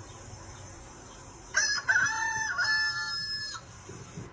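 A rooster crowing once, starting about one and a half seconds in and lasting about two seconds, over a faint steady high hiss.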